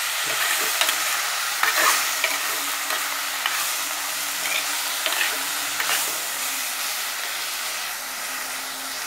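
Sliced beetroot, onion and green chillies sizzling in an earthenware pot while a metal ladle stirs them, with the ladle scraping and knocking against the pot now and then.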